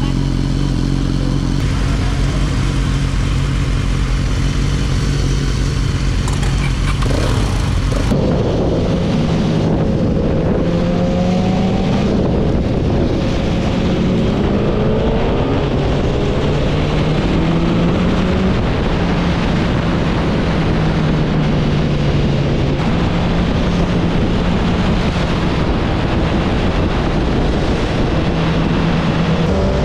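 Motorcycle engines idling steadily. About eight seconds in, the sound changes abruptly to a motorcycle being ridden at speed, its engine pitch rising again and again as it pulls through the gears.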